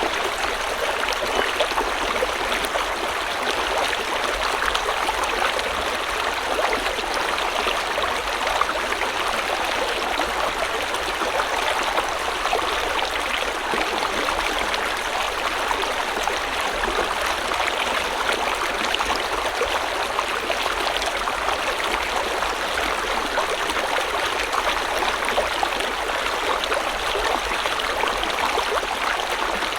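River water flowing steadily over rocks, a continuous rushing babble with fine splashing detail.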